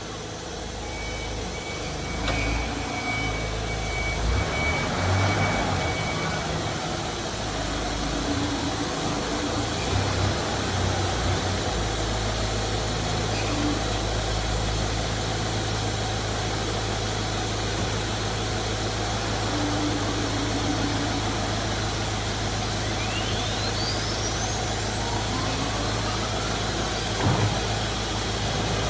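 CNC router running on test, its spindle and axis motors giving a steady low hum under high steady whines. About three-quarters of the way through a whine rises in pitch, and a single knock is heard shortly before the end.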